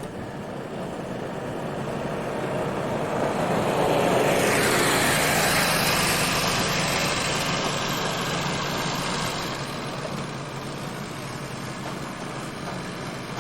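Aircraft flying past. Its engine noise swells to a peak about five seconds in, drops in pitch as it goes by, then slowly fades.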